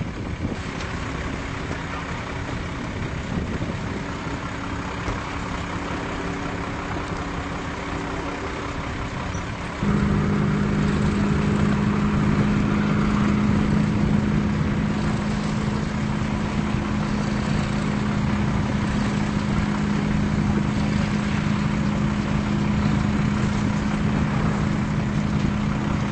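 An engine running steadily with an even hum. About ten seconds in it suddenly gets louder and then holds steady.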